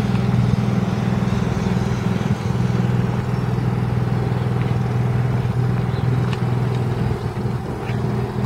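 An engine running steadily at idle, a constant low hum with a fast even pulse.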